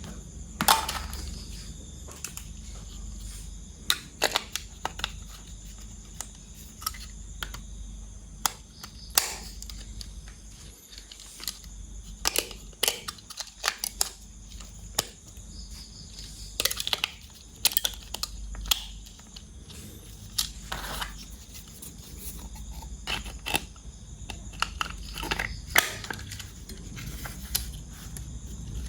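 Handling of plastic toys and their packaging: irregular sharp clicks, snaps and crinkles, some louder than others, over a low steady hum.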